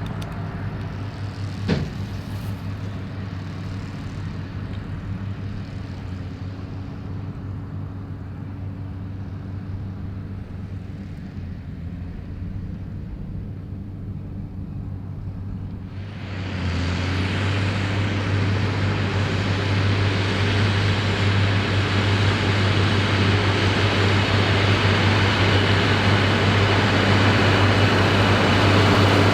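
New Holland TM155 tractor and Claas Variant 385 round baler running steadily at work, with a low engine hum. There is one sharp click about two seconds in, and about halfway through the sound turns suddenly louder and fuller, with much more hiss and clatter.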